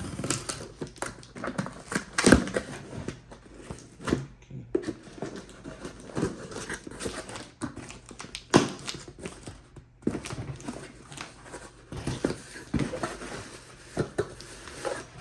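Packaging and a hand tool being handled and unpacked: rustling with irregular clicks and knocks, the sharpest about two seconds in.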